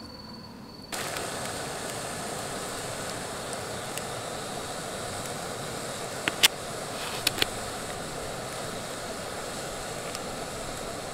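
A gas camp stove burner running with a steady rushing hiss under a steaming pot, starting abruptly about a second in. A few sharp clicks stand out over it about two-thirds of the way through.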